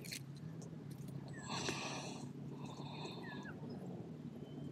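Faint animal calls over a steady low hum, with a louder, longer call about a second and a half in.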